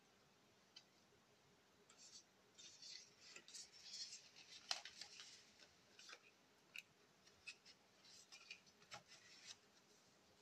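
Faint rustling and light clicking of stiff cardboard photo cards being handled, shuffled and slid against each other. It starts about two seconds in, with a busier patch of rustles in the middle and a few separate ticks near the end.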